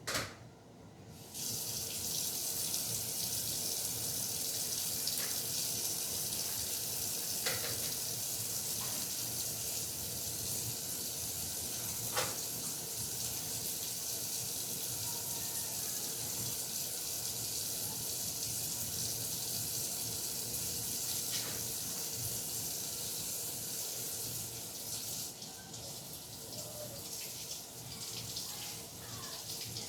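Kitchen sink faucet turned on about a second and a half in and running steadily, rinsing chicken breasts under the stream, with a few light knocks. The flow sounds more broken up near the end.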